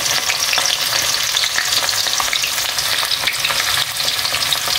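Sliced onions frying in hot cooking oil in a karahi: a steady sizzle with many small crackles, the oil bubbling hard around onions just added to it.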